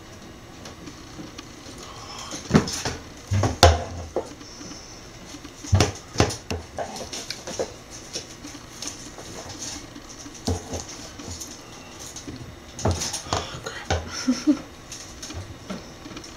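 Scattered clicks, taps and knocks, a few of them sharp and loud, from metal feeding tongs holding a rat being moved about inside a snake's vivarium.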